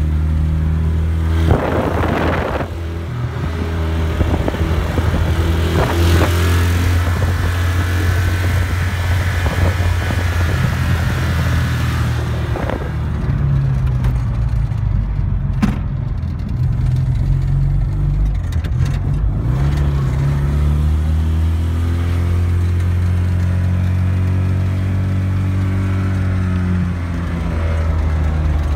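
Honda TN-series kei vehicle's 360cc two-cylinder engine running while driving, heard from inside the cab, its pitch shifting up and down with gear changes and throttle.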